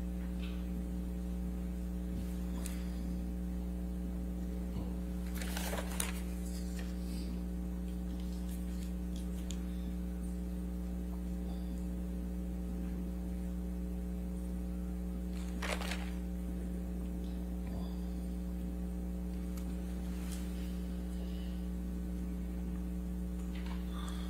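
Steady electrical mains hum with its stack of overtones, broken by two brief noises about six and sixteen seconds in.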